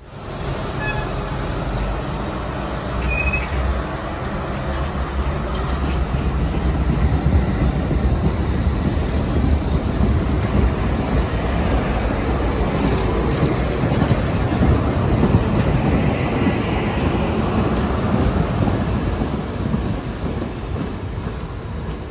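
R32 subway train running past at close range, a loud, steady rumble of wheels on rail and running gear.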